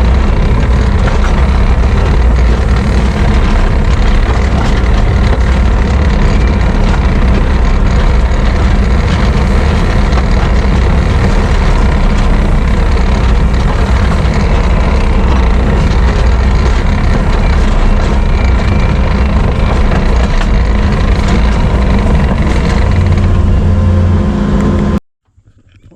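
Skid steer engine running steadily as the machine drives. The sound cuts off suddenly near the end.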